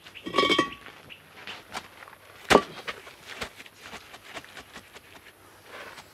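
Hollow concrete blocks being set into place: a short rasping scrape just after the start, one sharp knock about two and a half seconds in, then light taps and gritty scrapes of block and mortar.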